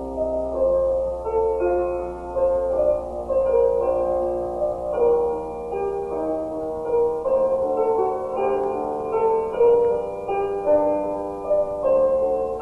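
Piano film score: a melody of overlapping held notes, over a steady low hum.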